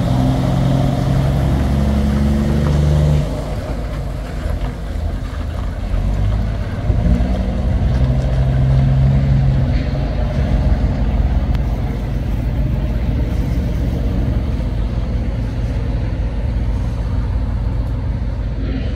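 Heavy diesel prime mover pulling a livestock crate trailer away and driving off. The engine note pulls strongly, drops sharply about three seconds in as it changes gear, rises again a few seconds later under load, then settles lower as the truck moves away.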